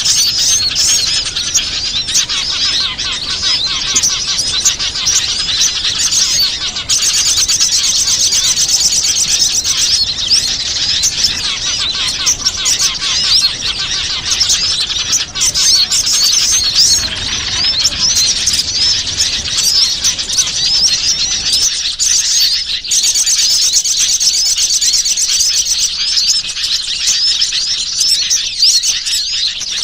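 A bird-lure recording of many small wild birds chirping and twittering at once in a dense, continuous, high-pitched chorus. The mix changes abruptly a few times, as if separate recordings were spliced together. It is a pikat call played to draw wild small birds in.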